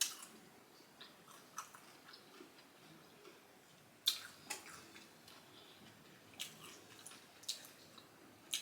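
Close-miked eating sounds: faint chewing broken by several short, sharp clicks and crunches, the loudest about four seconds in.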